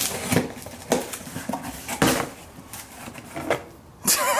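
A blade slitting packing tape on a cardboard box, then the flaps rustling open and metal food cans clinking together as they are lifted out: a string of separate clicks and scrapes.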